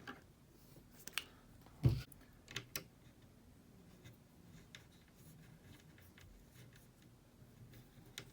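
Hand tools and small parts being handled on a desk: a few sharp clicks and knocks in the first three seconds, the loudest a dull knock about two seconds in, then faint light ticks.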